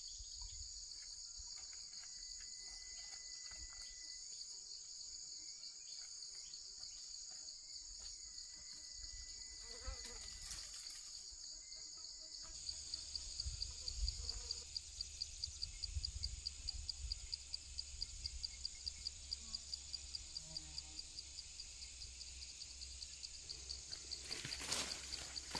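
Insects in a steady high-pitched chorus. About halfway through, another insect joins with a rhythmic pulsing call of a few pulses a second. A couple of brief noises come about ten seconds in and near the end.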